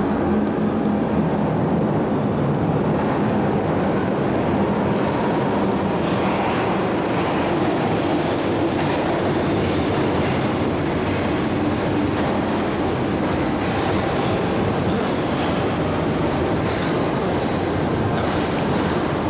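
Former Berlin U-Bahn D-type metro train coming in through the tunnel and running into an underground station platform. There is a steady rumble of wheels on rail, with clicks over the rail joints from about a third of the way in.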